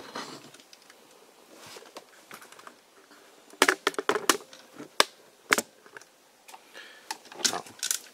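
Clicks and light knocks of a hard plastic Fire Diver transforming robot toy being handled and stood on a table: a few sharp clicks around the middle and another cluster near the end, with quiet between.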